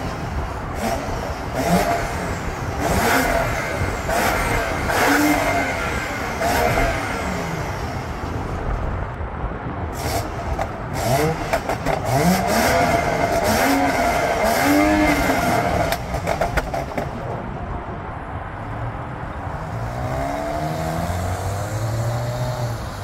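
BMW F10 535i's turbocharged N55 inline-six revved up and down several times through its valved exhaust with the valves open, with sharp pops and crackles between revs from a stage 2 tune with soft pops. It settles to lower, steadier running near the end.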